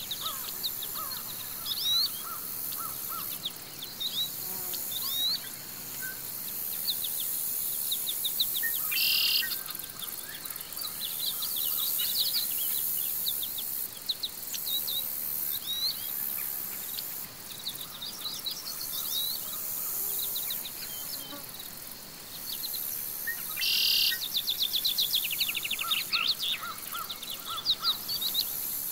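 Birds chirping and trilling over a steady high insect hiss: forest ambience. Two dense bursts of quick high trills stand out, about nine seconds in and near the end.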